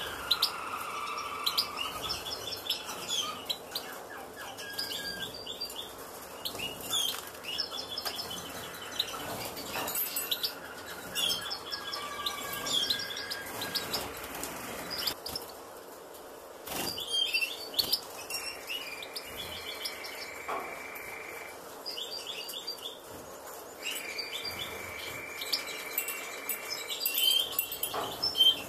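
Caged European goldfinches twittering: quick runs of short high chirps throughout, broken by two long steady whistled notes in the second half. The chirping grows louder near the end as a parent reaches the nest and the nestlings gape to be fed.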